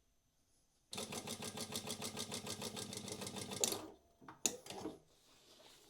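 Prosew PS-1903SX industrial walking foot sewing machine sewing a programmed stitch pattern, running at an even rhythm of about ten stitches a second. It starts about a second in, stops sharply a little under three seconds later, and is followed by a couple of short mechanical clicks.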